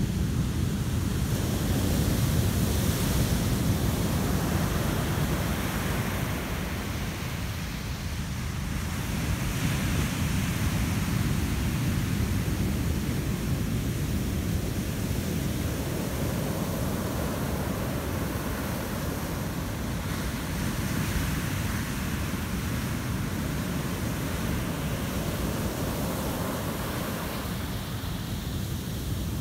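Heavy surf: large waves breaking and washing up the beach, a continuous rushing noise that swells and eases every several seconds as each wave breaks.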